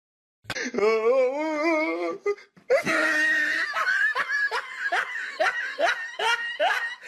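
A person laughing hard: a long wavering laugh, then a run of quick laughs about three a second.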